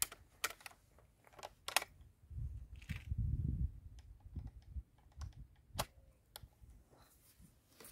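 Scattered sharp clicks and knocks of a Hatsan Torpedo 155 Vortex underlever air rifle being handled as it is cocked and loaded, with a low rumble from about two to four seconds in.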